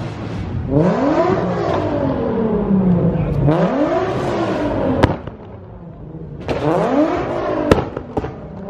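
A car engine revving hard three times, each rev climbing quickly in pitch and then falling back, with loud sharp exhaust bangs about five seconds in and again near the end.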